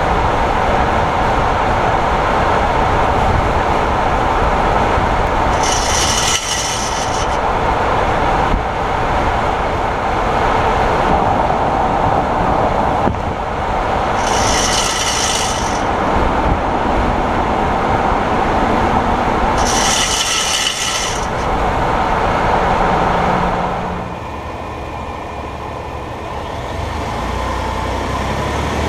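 2018 Ford F-150's front driveline grinding while driving, heard close up: a steady harsh running noise, with three high-pitched grinding bursts of about a second and a half each. The noise drops somewhat near the end. The owner suspects the integrated wheel ends (IWEs) that engage 4WD.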